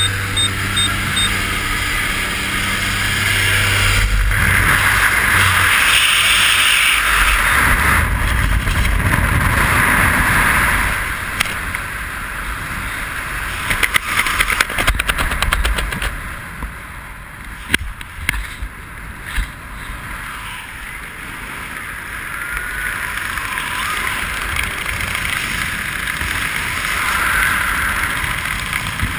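Aircraft engine droning at the open jump door. About four seconds in it gives way to heavy wind rush over a helmet camera's microphone in freefall. About eleven seconds in the wind eases to a lighter buffeting with a few clicks, as the parachute is open.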